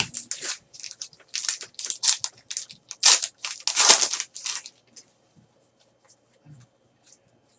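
A trading card pack's wrapper crinkling and tearing as the pack is opened and its cards are handled: a run of rustles and crinkles for about five seconds, dying away to a few faint ticks.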